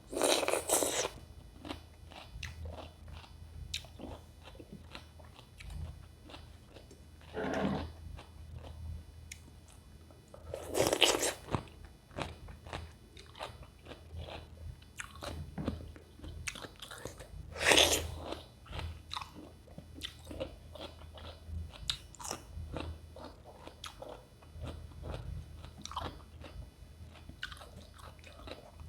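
Crunchy bites into raw cucumber with chewing between them. There are four louder crunches, at the start, about seven seconds in, about eleven seconds in and about eighteen seconds in, with many small wet chewing clicks in between.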